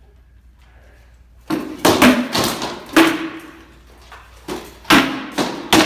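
Practice swords striking shields in a sparring bout: a rapid series of sharp knocks, about seven blows starting about a second and a half in, some with a short hollow ring.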